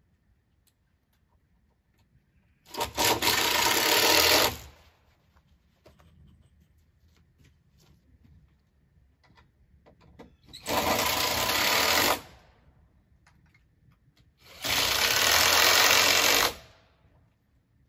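A power screwdriver running in three bursts of about two seconds each, driving screws into wooden deck framing.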